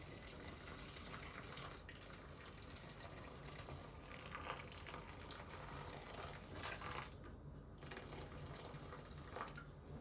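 Water running from a kitchen tap into a sink, with a few light knocks; the flow drops out briefly about seven seconds in.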